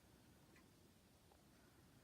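Near silence: a Harbor Breeze Pulsar ceiling fan running very faintly, a low hum with a faint tick about once a second.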